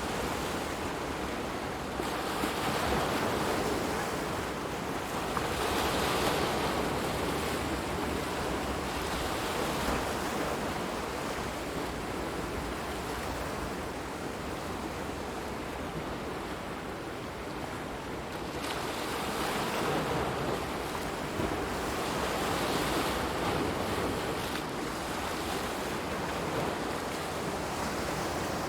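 Continuous rushing water that swells and eases every few seconds.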